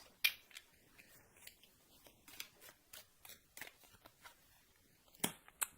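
Tarot cards being handled and laid out: a string of faint, separate clicks and snaps of card stock, with a sharper snap just after the start and two louder ones near the end.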